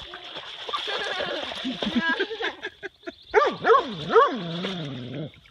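A dog whining and yelping in a run of high cries whose pitch sweeps up and down, starting a little past halfway in.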